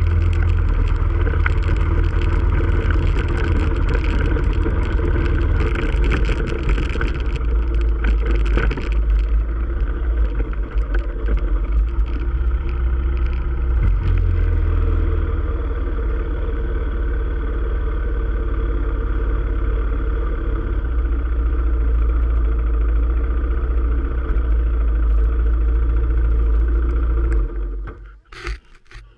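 Quad bike (ATV) engine running steadily while being ridden, then stopping abruptly near the end.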